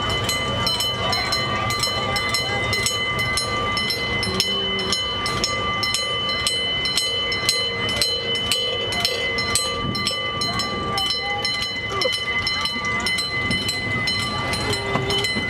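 Gas-powered miniature amusement-park train running, heard from one of its open passenger cars: a continuous rumble with a steady high whine and a rapid, regular clicking, about three to four clicks a second.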